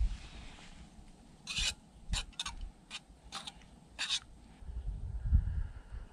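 A spoon stirring tea in a small stainless steel pot, scraping and clinking against the sides in about seven short strokes. Near the end comes a dull low bump.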